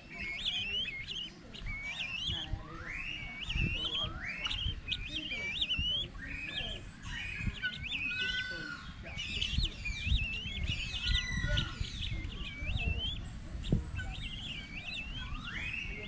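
Helmeted guineafowl calling: runs of short, high chirping notes repeated several times a second, with a few rising whistled calls among them. A few low thumps come in underneath.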